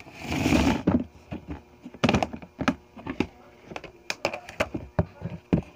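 Hands rummaging in a plastic storage bin of small toys and boxes: a brief rushing scrape at the start, then a run of sharp clicks and knocks as plastic and cardboard items are moved about.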